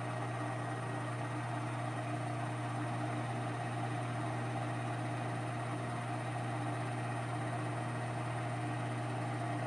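Precision Matthews PM-1440GT metal lathe running, a steady, even motor and gear hum.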